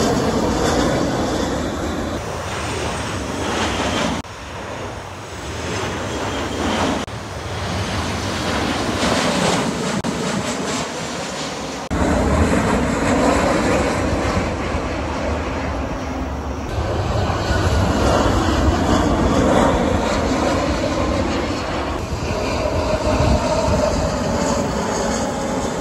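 Jet aircraft on final approach passing low overhead one after another, their engines making a steady loud rumble with whining tones that slowly fall in pitch as each goes by. The sound changes abruptly at several points where one passing plane gives way to the next.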